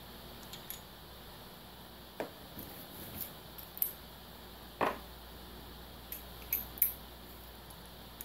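Metal hand tools clinking and knocking as a socket wrench with an extension is brought up and fitted to a bolt on a bare cast-iron diesel engine block, in scattered sharp clicks, a few seconds apart.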